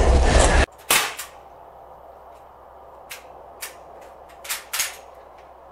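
A loud rushing noise cuts off abruptly under a second in. Then come six sharp cracks of a Sig Sauer MPX .177 semi-automatic pellet pistol firing on high-pressure air from a bulk-fill tank: a quick pair about a second in, two more around three to four seconds, and another quick pair near the end.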